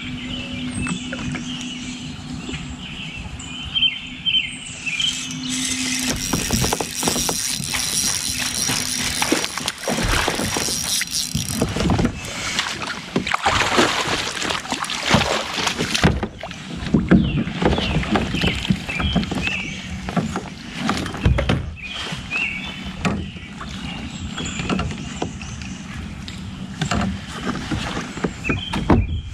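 Water splashing and churning as a hooked largemouth bass thrashes at the surface beside a kayak while it is fought and landed. Many sharp knocks and clicks run through it.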